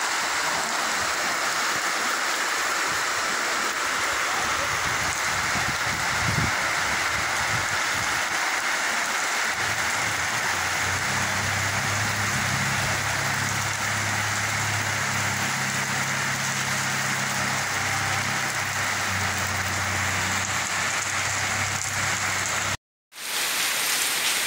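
Heavy rain falling steadily on pavement, a dense even hiss. From about ten seconds in a low steady hum sits under the rain for most of the rest, and the sound drops out for an instant near the end.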